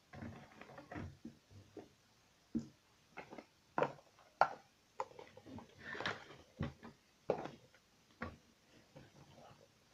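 Hands working rubber bands on a plastic bracelet loom: irregular light clicks and taps as bands are hooked over the pegs, with a brief rustle about six seconds in.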